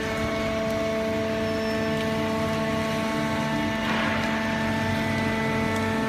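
Automatic horizontal hydraulic waste paper baler running, its hydraulic power unit giving a steady multi-tone hum. A brief hiss comes about four seconds in.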